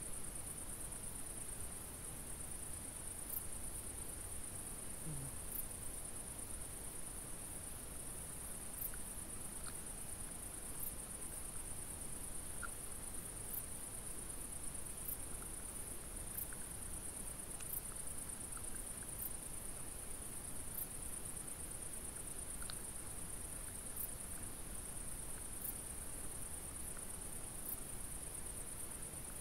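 Crickets trilling steadily in one continuous high-pitched chorus, with a few faint scattered ticks.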